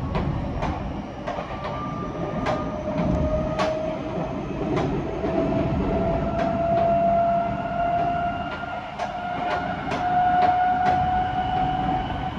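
Tokyo Metro 05 series electric train accelerating away from a station, heard from inside the car. The traction motors' whine rises steadily in pitch over a low running rumble, and the wheels click over rail joints, the clicks coming closer together near the end.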